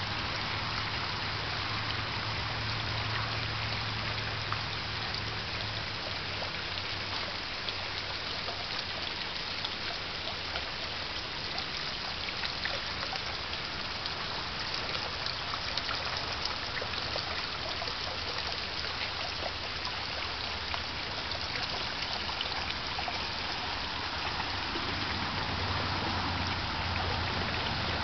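Water trickling and splashing over the rocks of a garden waterfall and stream that feeds a koi pond, a steady, even rush of water. A low hum sits under it at the start and again near the end.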